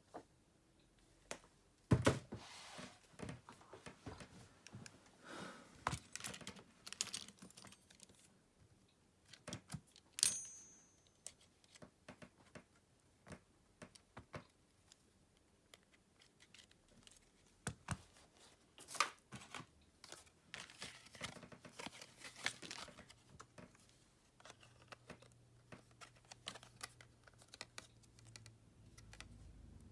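Irregular small clicks, taps and scrapes of tools and parts being handled on a Samsung Galaxy M31s smartphone during repair, with a few crinkling, peeling sounds.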